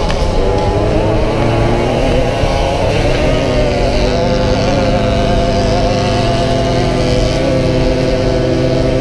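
Small two-stroke racing moped engine running at high revs, heard from on board. Its pitch climbs from about two to four seconds in, then holds steady, over a steady rush of wind on the microphone.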